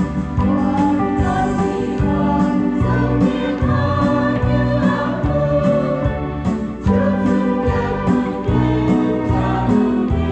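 Choir singing a Vietnamese Catholic hymn with instrumental accompaniment.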